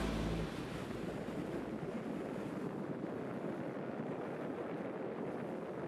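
Steady outdoor wind and water ambience: wind on the microphone and waves on the water, an even rushing noise. The tail of background music cuts away about half a second in.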